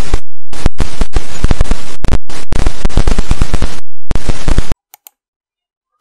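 Whoosh transition sound effect, played very loud and distorted: a dense rush of noise full of crackle, broken by a few brief dropouts, that cuts off suddenly about three-quarters of the way through. A few faint clicks follow.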